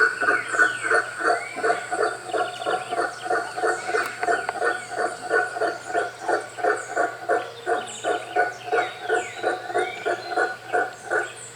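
Howler monkey calling: a long, even run of pulsed calls, about three or four a second. Faint high chirps and a steady high whine sit in the background.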